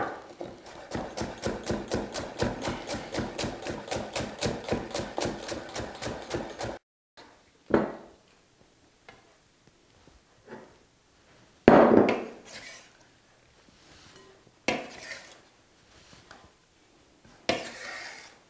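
Chef's knife slicing scallions on a wooden cutting board, a fast, even run of knocks about five a second. After a short break, a few separate, louder knocks follow at intervals.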